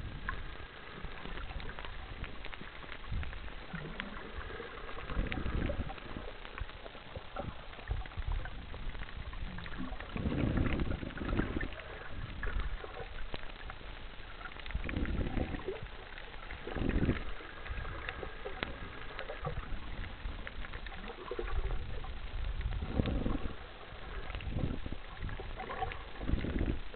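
Water heard through an underwater camera: several low, muffled surges and swishes of moving water a few seconds apart, over a steady fine crackling.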